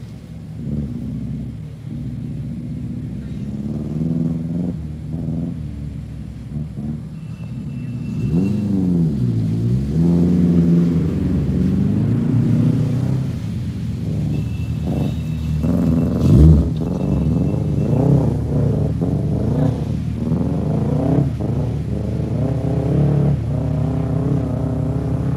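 Rally car engine revving hard through its gears, pitch climbing and dropping again and again, with one loud thump about sixteen seconds in.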